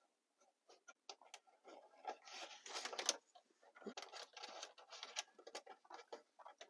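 Faint scratching and rustling with small clicks as insulated wires are pushed through and tugged behind plastic dashboard trim. There are two longer stretches of scratching, about two seconds in and about four seconds in.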